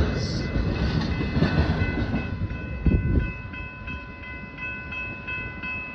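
Freight train rolling past, a low rumble and clatter slowly fading, with one louder knock about three seconds in. Over it a railroad crossing bell rings in a steady rhythm.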